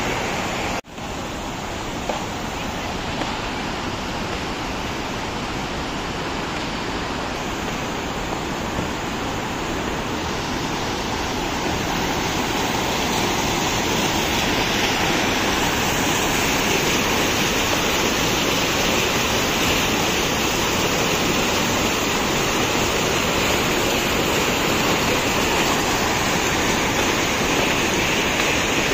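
River rapids, white water running fast over rocks, a steady rushing noise that grows louder about halfway through. There is a brief cut-out about a second in.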